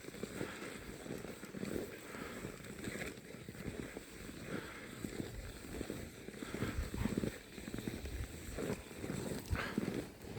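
Footsteps crunching in snow, an uneven run of soft steps.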